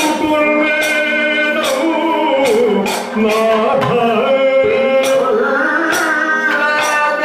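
Kathakali music: a male singer sings a melismatic vocal line over a regular struck beat, about one strike every three-quarters of a second.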